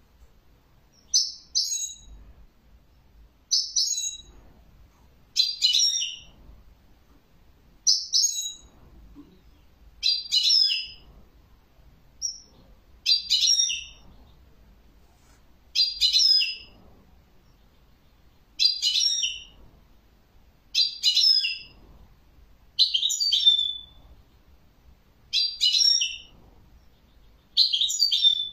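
European goldfinch singing short, high twittering phrases, each about a second long, repeated every two to two and a half seconds.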